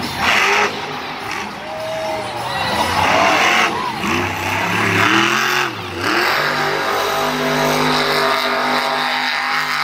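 Monster truck's supercharged V8 revving hard, its pitch swooping up and down in loud bursts as it drives over dirt jumps, then holding a steadier note for the last few seconds. A stadium crowd is heard underneath.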